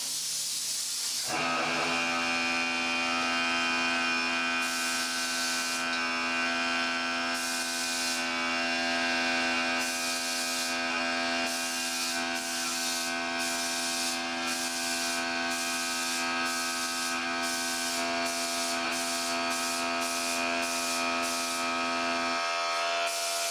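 An air compressor hums steadily while a paint spray gun hisses on and off in bursts as its trigger is pulled and released. The bursts come shorter and quicker near the end.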